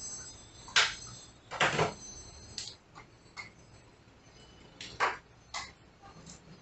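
Scattered sharp clicks and knocks of a crossbow being handled, about half a dozen, the loudest just under a second in, near two seconds and about five seconds in.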